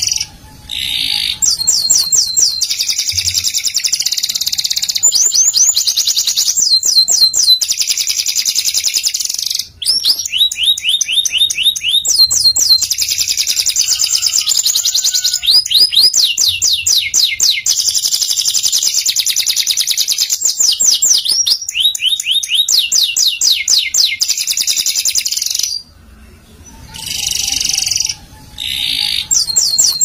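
Domestic canary singing a long song of rapid rolls and trills, fast runs of repeated notes. There is a brief break about ten seconds in and a short pause near the end before it starts again.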